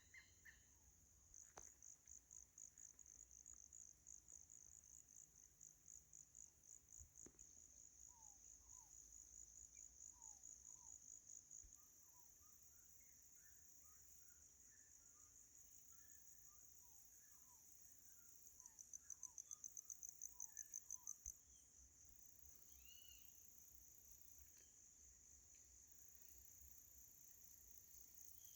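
A faint, high, continuous insect trill with rapidly pulsing stretches, louder for a few seconds past the middle. Faint scattered bird chirps sound underneath.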